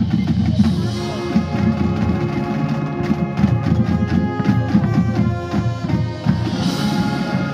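High-school marching band playing its field show: held ensemble chords that shift a few times over drum and percussion hits.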